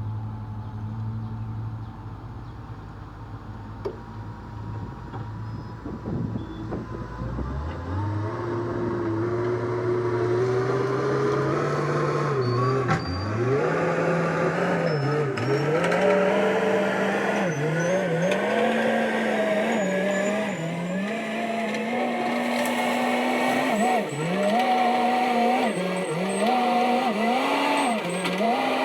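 Kubota SVL65-2 compact track loader's diesel engine idling low. About seven seconds in it revs up, and then its speed keeps dipping and recovering again and again, as if working under load.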